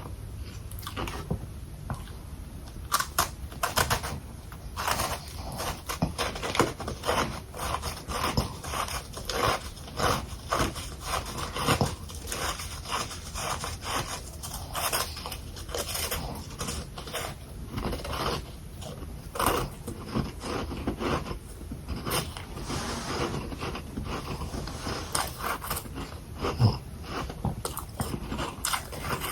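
Close-up crunching and chewing of packed freezer frost, many irregular crisp crunches in quick succession.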